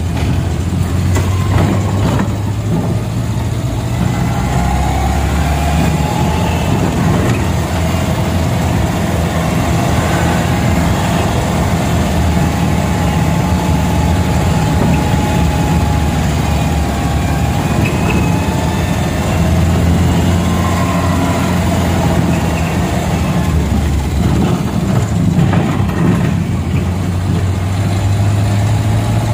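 Angkot minibus engine running steadily while driving, heard from inside the vehicle, with a fainter whine that drifts up and down in pitch as the speed changes.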